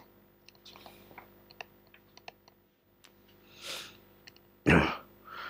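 Faint, scattered clicks like those of a computer keyboard or mouse, as the presentation slide is advanced, with a short louder breathy noise near the end.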